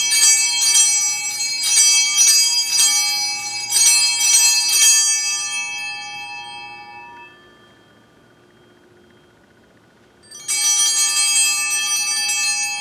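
Altar bells rung at the elevation of the consecrated Host: rapid repeated ringing for about five seconds that then dies away. After a pause of about three seconds a second, shorter ring follows, marking the priest's genuflection.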